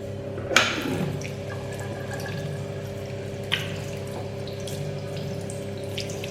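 A water tap running with weak water pressure, over a steady hum, with a sharp clatter about half a second in and another about three and a half seconds in.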